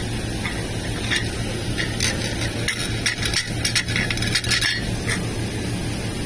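Electric arc welding: sharp crackling and clicks, sparse at first and thickest in the middle, over the welding machine's steady low hum.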